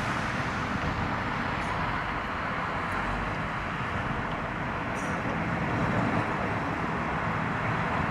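Steady outdoor background noise of road traffic, an even rush with no distinct events.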